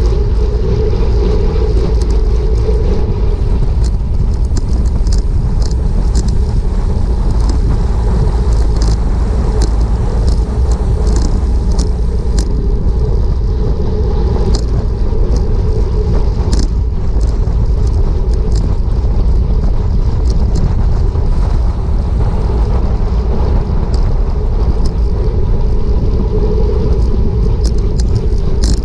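Heavy wind and road rumble on a bicycle-mounted camera's microphone at racing speed, about 25 mph, steady and unbroken. Scattered sharp ticks are heard through it.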